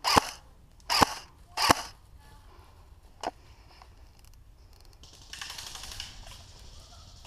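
Airsoft guns firing: three sharp, loud shots in the first two seconds and a fainter single shot about three seconds in. From about five seconds on, a steady rustling hiss.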